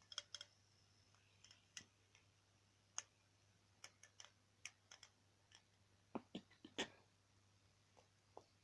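Faint, irregular clicks and taps of a plastic fidget spinner being handled in the fingers, with a short run of louder clicks about six to seven seconds in.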